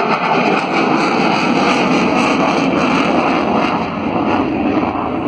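Jet noise from an F/A-18 Super Hornet's twin turbofan engines flying its demonstration: a loud, steady rush heard from the ground.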